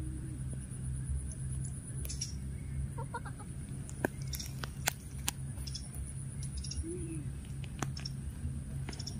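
A few short, low animal calls over a steady low hum and a steady high-pitched drone, with several sharp clicks around the middle.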